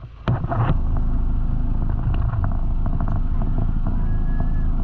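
Engine of an off-road 4x4 jeep running close to the microphone. It comes in suddenly a quarter second in, then holds a steady low rumble.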